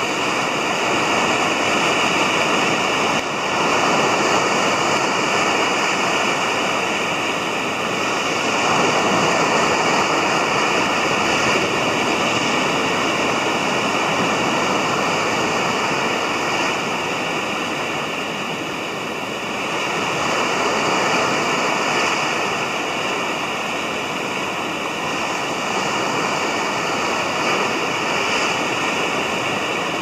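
Gulf of Mexico surf breaking and washing up a sandy beach: a steady rush of whitewater that swells and eases as successive waves come in.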